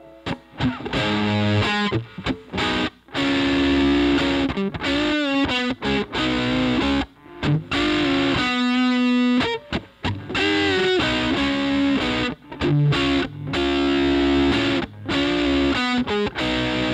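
A 1980 Giannini Diamond semi-hollow electric guitar played solo through an amplifier: short lead phrases of single notes, with bent notes and a wavering vibrato on held notes, broken by brief pauses.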